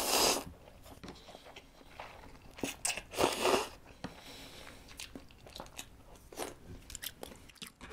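A person slurping ramen noodles into a close microphone at the start, with a second slurp-like burst about three seconds in. In between come chewing and small clicks of chopsticks and spoon.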